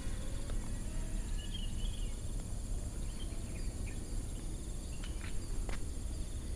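Open-field ambience: a steady high-pitched insect drone over a low rumble, with a few faint bird chirps.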